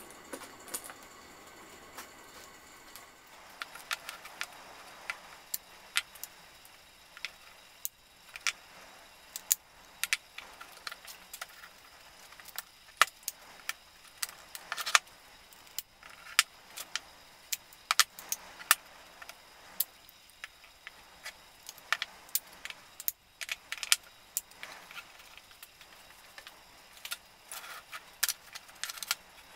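Thin elm slats clacking and knocking against one another and the workbench as they are handled, lifted apart and set back down side by side. The sharp, irregular clicks and knocks are sparse for the first few seconds, then come thick and fast.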